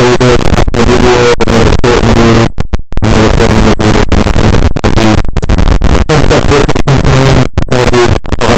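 Loud crackling static from a faulty microphone, cutting out in brief sudden drops, with a pitched hum running under it.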